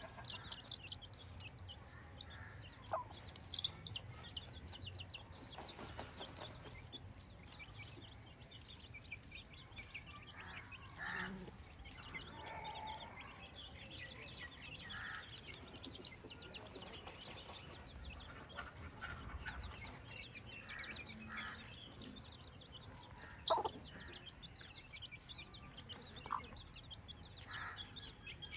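Chickens clucking in a flock, with many short high chirps throughout and a few louder single calls.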